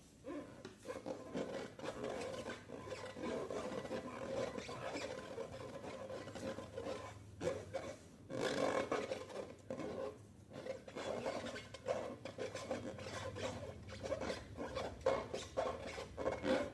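Slime being mixed and worked: a continuous sticky rubbing sound with a few short breaks.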